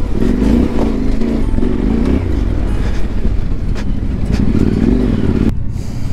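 Yamaha Ténéré 700's parallel-twin engine running at low revs on a rough track, its pitch rising and falling with the throttle. It cuts off suddenly about five and a half seconds in.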